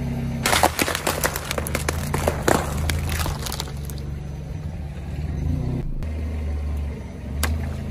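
A car tyre rolls over a tray of raw eggs: a quick run of eggshells cracking and crunching, which dies away after about three and a half seconds, over the car's engine running steadily. A single sharp click is heard near the end.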